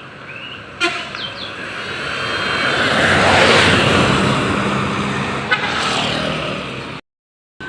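A tour bus passing close by: its engine and road noise swell to a peak and fade away, with faint horn tones as it approaches. A sharp knock sounds about a second in, and the sound cuts off suddenly near the end.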